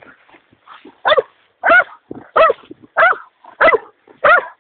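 Police dog barking six times in a steady series, about one bark every two-thirds of a second, starting about a second in.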